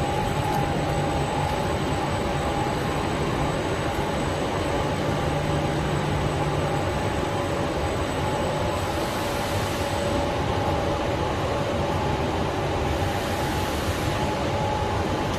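Powered roller conveyor running steadily as it carries a loaded, stretch-wrapped pallet across its rollers. It makes an even mechanical rumble with two steady humming tones over it.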